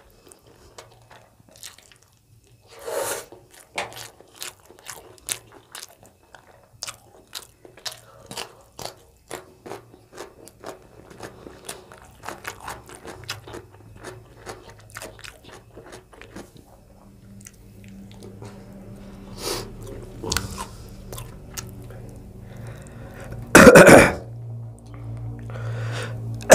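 Close-miked chewing and lip-smacking of rice and chicken eaten by hand: a steady run of small, sharp, wet mouth clicks. A short cough-like burst about three seconds in, and a much louder cough near the end.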